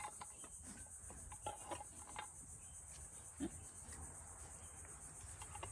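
Faint, steady high-pitched chirring of insects such as crickets, with a few small scattered clicks and one brief low sound about three and a half seconds in.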